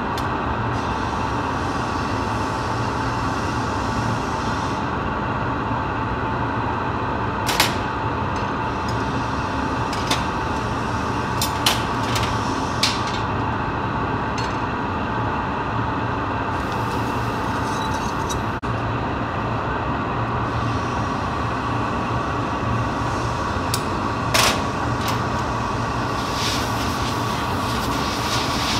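Steady roar of a glassworks furnace and its blowers, with a low hum under it. A few sharp metallic clicks and taps from the glassblower's steel pincers and rod punctuate it, one of the loudest near the end.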